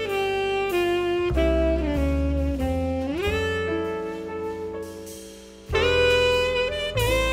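Background jazz music with a saxophone melody over a bass line, the melody sliding up in pitch about three seconds in.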